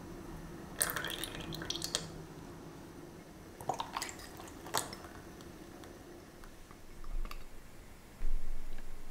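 Milk and cream poured from a glass jug into an enamel saucepan, splashing and dripping in two short spells. A louder dull knock near the end.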